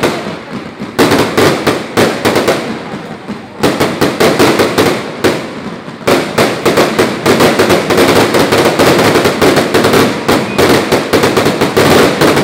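Fireworks going off: rapid, dense crackling bangs from roof-mounted fountains and bursting aerial shells, easing off briefly three times before picking up again.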